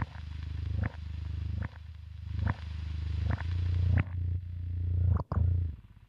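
Guitar loop played back through a Chase Bliss Blooper looper pedal with its mods on, giving a low drone: a short segment repeats about every 0.8 seconds, each repeat swelling louder and restarting with a click. It breaks off about five seconds in and dies away.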